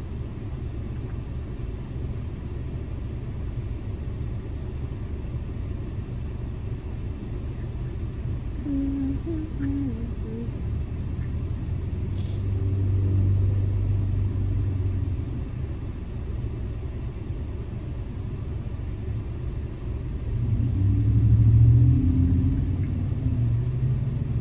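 Steady low rumble inside a car waiting at a red light, with passing traffic swelling louder about halfway through and again near the end.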